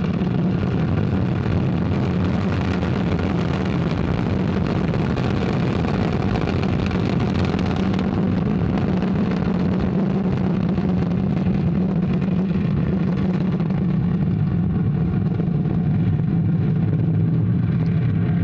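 Ariane 5 ECA rocket's two solid rocket boosters and Vulcain main engine firing through liftoff and the climb: a loud, steady, deep noise. Its highest parts thin out over the last few seconds as the rocket climbs away.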